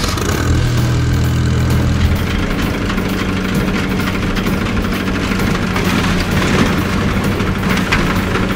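Ventrac 4500Z compact tractor's engine starting up just after the start and then running steadily.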